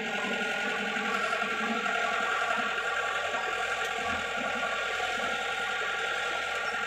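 Hyundai crawler excavator's diesel engine running steadily under load as it digs, with a steady mechanical drone.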